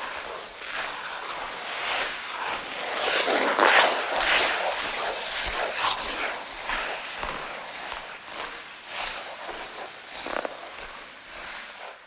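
Ice skate blades scraping and gliding on ice in a series of uneven strokes, loudest a few seconds in and fading toward the end.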